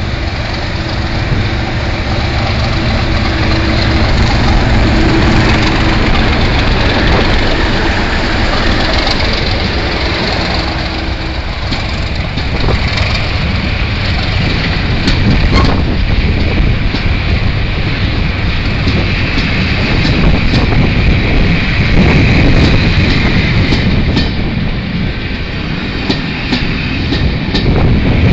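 Class 37 diesel locomotive running as it hauls a train slowly past, its engine note steady for the first ten seconds or so. Then the coaches roll by, wheels clicking over the rail joints again and again.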